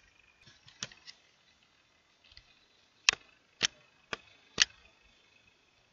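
Computer mouse clicks: a soft pair about a second in, then four sharp clicks about half a second apart from around three seconds in.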